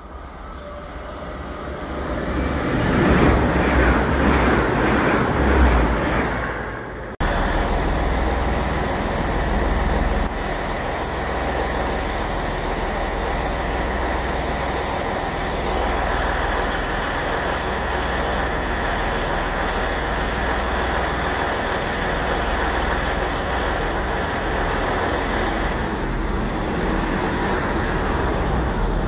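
Passenger trains passing along the platform. The first builds up and rushes past, loudest around three to six seconds in. After an abrupt change about seven seconds in, a steady, loud train running noise carries on as a second train draws along the near platform.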